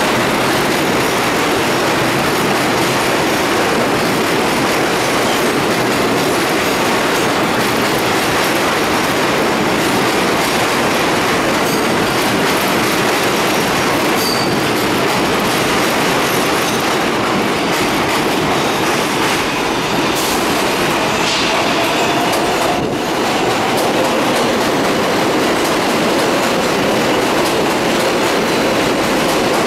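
R188 subway train on the 7 line pulling into an elevated station: steady noise of steel wheels running on the rails, with clickety-clack and faint wheel squeal in the second half.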